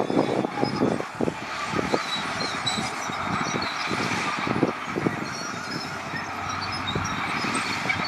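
Heavy earthmoving machinery at work: a steady mechanical din with many irregular metallic clanks and knocks, thickest in the first couple of seconds.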